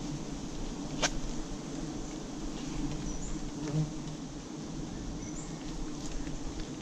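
Swarm of bees buzzing steadily around an open honeycomb being cut, with one sharp click about a second in.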